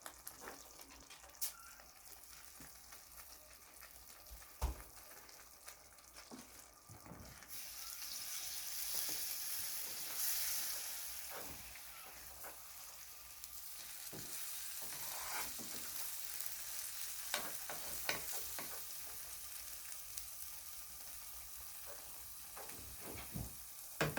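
Frying onion, garlic and spices sizzling in oil in a pan as boiled mussels are added and stirred in. The sizzle turns louder about seven and a half seconds in, with a sharp knock a little before that and scattered clicks of stirring afterwards.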